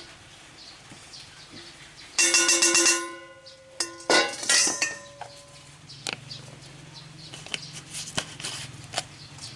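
A utensil scraping and knocking against a bowl of dry spice rub, ringing twice: once about two seconds in and again about four seconds in, the second ring dying away slowly. Light clicks and taps follow.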